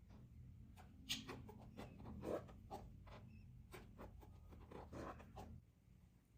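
Faint, irregular scratching and rustling of a crochet hook catching and pulling t-shirt yarn through stitches, over a low hum that drops away near the end.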